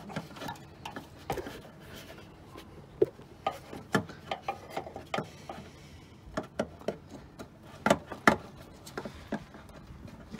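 Hands working the plastic windscreen washer pump and reservoir: irregular clicks, knocks and rubbing of plastic parts being handled and pressed into place, with a few sharper knocks a few seconds in and near the end.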